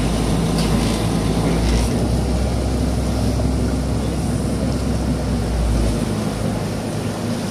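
Motorboat engine running steadily under way, with a deep low rumble that drops away about six seconds in.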